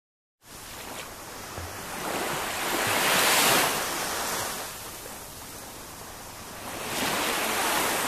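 Small sea waves washing onto a sandy beach, with a steady wash that swells twice: loudest about three seconds in and again near the end.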